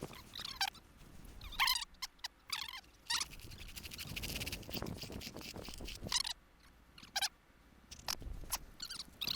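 Sped-up (800%) field audio: high, squeaky chattering bursts, voices and handling noise turned chipmunk-like by the fast playback, as a steel fish tape is worked up a buried spring pipe. A stretch of scraping hiss comes about four seconds in.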